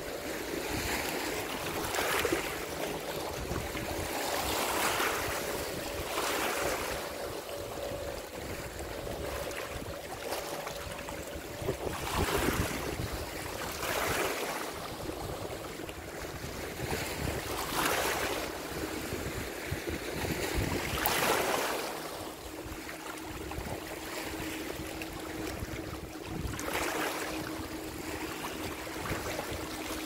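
Small waves lapping and splashing at the water's edge, a surge every two to four seconds over a steady wash of water and wind.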